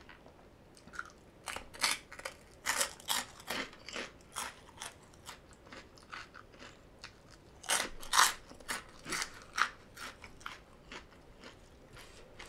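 Close-miked crunching and chewing of crisp deep-fried pork rinds (khaep mu), many sharp crackling bites in two busy runs, about two seconds in and again about eight seconds in.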